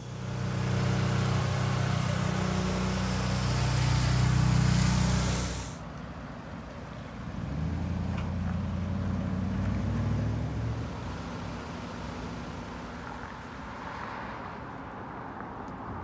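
A motor running with a steady low hum and a strong hiss over it; the hiss and the loudest part cut off abruptly about six seconds in. A second, lower motor hum follows, rising slightly in pitch a couple of seconds later and fading out after about eleven seconds.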